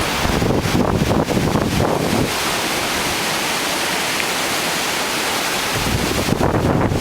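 Strong storm wind from the remnants of Hurricane Ike, gusting and buffeting the microphone with a low rumble. For a few seconds in the middle the rumble drops away and the wind becomes a steady rushing hiss, then the buffeting returns near the end.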